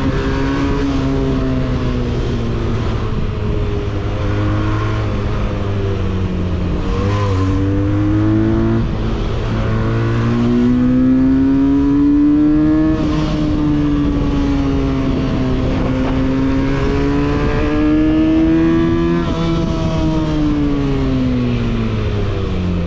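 Benelli 302S's 300 cc parallel-twin engine and exhaust heard from on board while riding, the revs rising and falling several times as it accelerates and eases off, then dropping away near the end.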